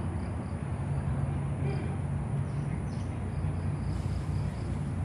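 Outdoor ambience by a swampy pond: a steady low rumble with faint, scattered high-pitched chirps.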